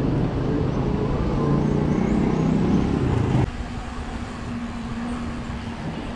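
Motor vehicle engine running close by in road traffic, a loud low drone that rises slightly in pitch. It cuts off abruptly about three and a half seconds in, giving way to quieter wind and road noise with a faint steady hum.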